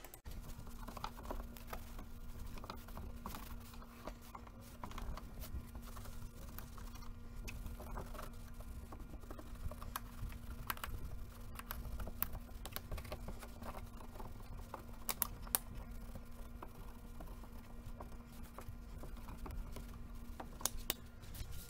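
Irregular light clicks and taps of hands handling and cleaning a console stereo receiver's front panel and controls, over a faint steady hum.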